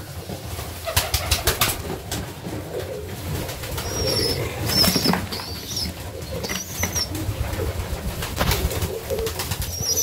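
Serbian highflyer pigeons in a loft: low cooing, a few bursts of wing flapping, and short high squeaks several times.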